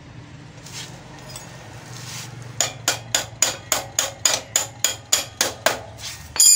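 Quick metal-on-metal hammer taps, about four a second, driving the rear axle back through the hub of a Honda CD 70 motorcycle. The taps start a couple of seconds in and end with a louder, ringing clang.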